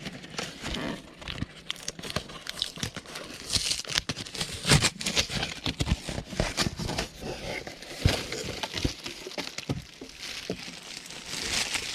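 Speaker packaging being unwrapped and handled: plastic wrap crinkling and rustling, with scattered sharp clicks and knocks.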